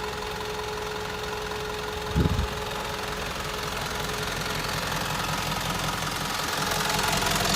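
Hino S05D four-cylinder diesel engine of a 2002 Hino Dutro truck running steadily, with a brief low thump about two seconds in; it grows gradually louder in the second half.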